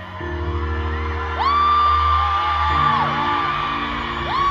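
Live pop music from a concert sound system, with a fan near the phone letting out a long high whoop that swoops up, holds and drops, about a second and a half in, and a second one starting near the end.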